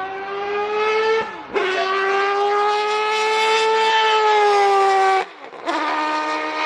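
Race car engine at high revs. The revs climb and cut briefly at a gear change just after a second in. They then hold high and loud, and around five seconds in the engine goes quiet for half a second and comes back at steady, lower revs.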